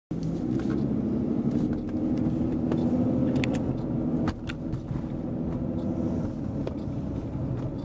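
Car cabin noise: a steady low rumble of engine and road heard from inside the car, with a few light clicks, the sharpest about four seconds in.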